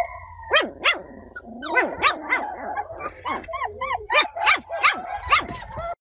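Puppy barking in a rapid string of short, high-pitched yaps.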